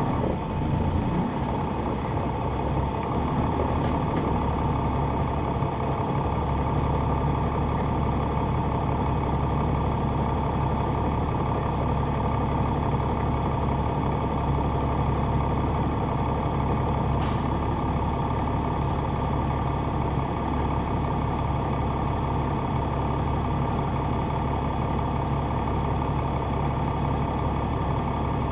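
The Caterpillar C9 ACERT diesel engine of a 2004 Neoplan AN459 articulated transit bus, heard on board from the rear seats, running with a steady drone. Two short hisses come a little past halfway through.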